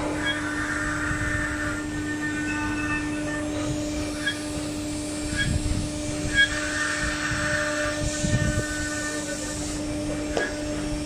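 STYLECNC STM1530C CNC router spindle running with a steady whine while a small bit engraves a pattern into a wooden board. A higher buzz comes and goes in stretches as the head moves and cuts.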